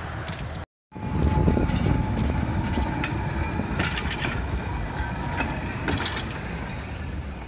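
Restored 1903 Sydney tramway freight car rolling slowly past on its steel wheels: a steady low rumble from the running gear, a few sharp clicks from wheels on rail, and a faint steady whine through the first half. The sound drops out for a moment just under a second in.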